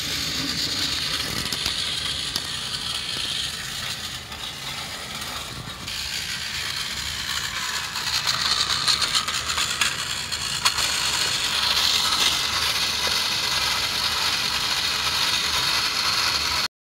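Battery-powered Plarail S-46 Doraemon toy train running on plastic track: the steady whir of its small gear motor and wheels on the rails, quieter for a moment after a few seconds and louder from about halfway as it runs close by.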